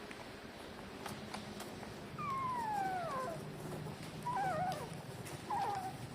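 Newborn puppy whining: one long high whine falling in pitch, then two short wavering squeaks.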